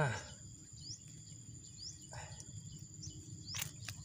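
Quiet outdoor ambience: faint, short rising chirps recur every half second or so over a low background rumble, with a few sharp clicks near the end.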